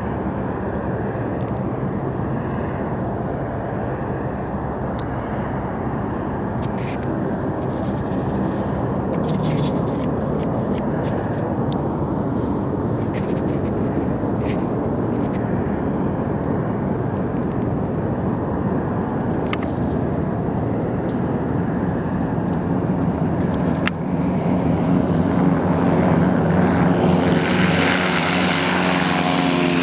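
Propeller engines of a Hunter UAV, a twin-engine push-pull drone, droning steadily on its landing approach. The drone grows louder over the last several seconds as the aircraft comes close, and wavers in pitch near the end as it passes. A single sharp click comes about two-thirds of the way in.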